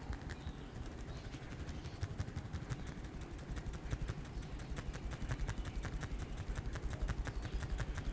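Hands at work in a head massage: a fast run of light clicks, several a second, over a low rubbing rumble close to the microphone.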